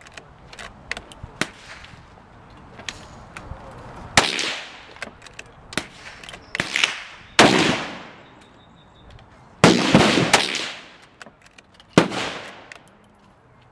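Rifle shots: about five loud, sharp cracks, each with a brief echoing tail, mixed with many fainter pops from other guns. The loudest are likely a Marlin 783 bolt-action rifle firing .22 WMR jacketed hollow points; two of them come almost together about ten seconds in.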